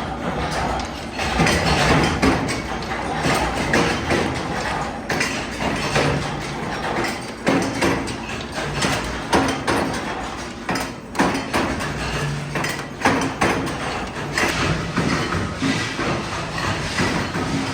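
Metalworking factory machinery running, with many irregular sharp metal knocks and clanks over a steady noise.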